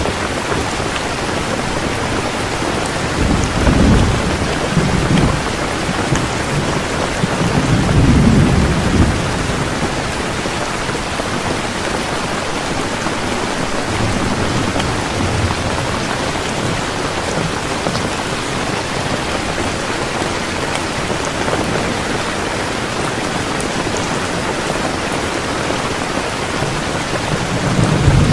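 Heavy rain pouring steadily, with low rumbles of thunder rolling in several times: about four seconds in, around eight to nine seconds, briefly near fifteen seconds, and again at the end.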